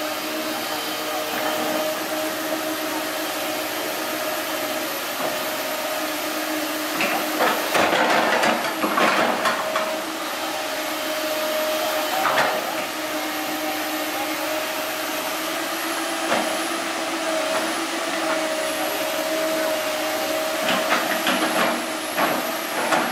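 Komatsu PC160LC hydraulic excavator running, with its engine and hydraulics giving a steady whine that dips in pitch now and then. Several times there are short bursts of scraping and crunching as the bucket pushes and drops soil into the trench over a buried pipe. The loudest bursts come about eight seconds in.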